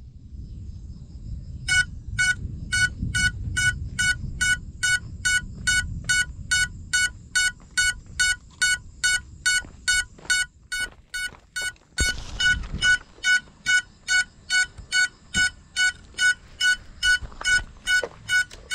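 A crashed FPV quadcopter's lost-model buzzer beeping, short high beeps at one pitch about two and a half times a second, starting about two seconds in, over low rustling.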